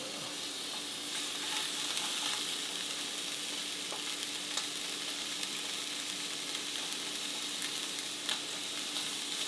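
Specklebelly goose breast steaks sizzling in a hot frying pan: a steady frying hiss with an occasional faint pop.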